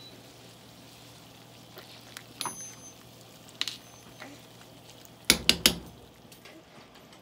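A pot of mustard greens simmering in boiling water, with a faint steady hiss. A metal utensil clinks against the steel pot a few times, with three sharp knocks in quick succession about five seconds in.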